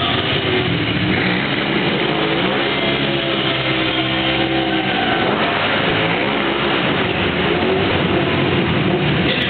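Sport bike engine revving hard during a stunt-riding run, the pitch climbing and falling again and again, with a long rise and drop about three to four seconds in.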